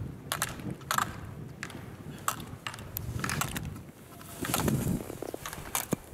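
Slalom skis scraping over packed snow through the turns, with sharp clacks about once a second as the racer knocks the hinged plastic slalom gate poles aside.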